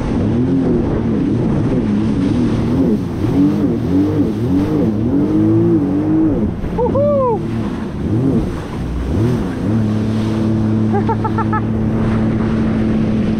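Jet ski engine running at speed over choppy sea, its pitch swooping up and down over and over, then settling to a steady high note about ten seconds in. A rush of water and spray runs underneath.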